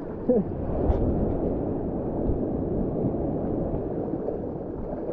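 Shallow surf washing and foaming around a camera held at the water line, a steady rush of moving water with a few low knocks.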